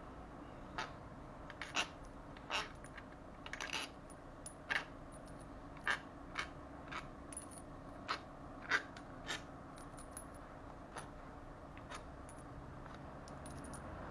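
Light, sharp metallic clinks and taps at irregular intervals, about a dozen and a half: loose steel bolts and hand tools being handled and set down while the gearbox casing is unbolted.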